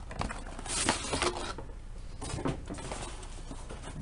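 Hands opening a cardboard box: cardboard sliding and scraping, loudest about a second in, with a few light knocks and taps after it.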